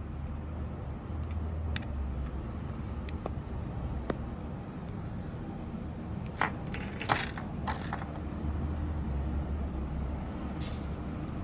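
A steady low rumble with scattered faint clicks, and a short cluster of sharper clicks or rattles a little past the middle.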